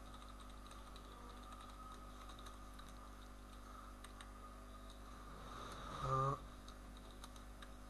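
Faint typing on a computer keyboard, scattered key clicks over a steady low hum. About six seconds in, a man's voice makes one brief voiced sound.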